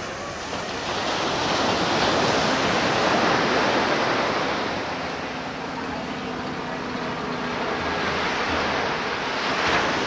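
Ocean surf breaking and washing up onto the sand, in a steady wash that swells about two seconds in and again near the end.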